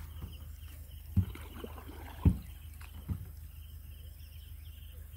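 Wooden rowing boat being pushed off a bank with a pole: three dull knocks against the hull about a second apart, the middle one loudest, over a steady low rumble. Faint chirping runs in the background.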